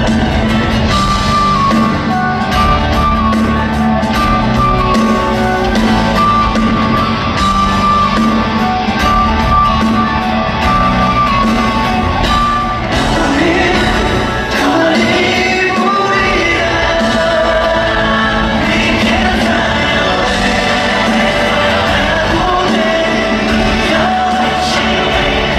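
Live concert music: singing over a band or backing track, with shouts from the audience.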